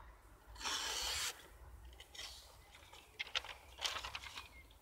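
Knife blade slicing through a sheet of paper in a paper-cutting sharpness test: one smooth cut lasting under a second, about half a second in. Light crinkling and ticking of the paper follows.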